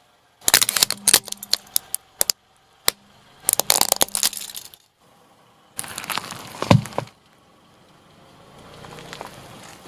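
Hard plastic cracking and snapping as a car tyre rolls over and crushes a plastic wind-up toy, in three bursts of rapid cracks, the last ending in a low thud. A quieter, softer crushing follows near the end.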